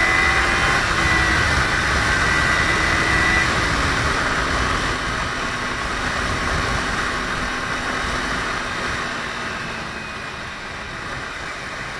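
Kawasaki Ninja 300's parallel-twin engine running at road speed under a heavy rush of wind noise on the helmet microphone. Its note sinks slowly, and the overall sound eases off about nine seconds in.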